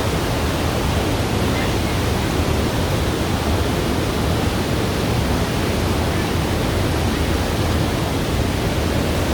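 Düden Waterfall pouring: a steady, loud rush of falling water.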